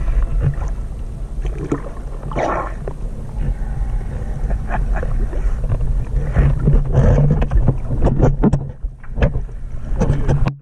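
Sea water lapping and splashing right at the microphone at the ocean surface, in irregular slaps, over a steady low rumble.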